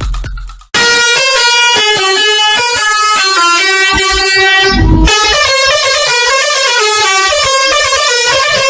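Indonesian bus 'telolet' horn, a set of multi-tone air horns, playing a fast tune: several notes sound together and switch pitch every quarter second or so. It starts just under a second in, right after a short burst of electronic music cuts off, and breaks briefly about five seconds in.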